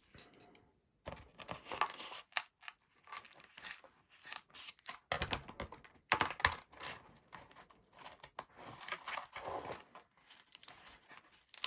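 Irregular scraping, crinkling and clicking of hands working on a small RC flying wing, forcing out a hole for the power cables.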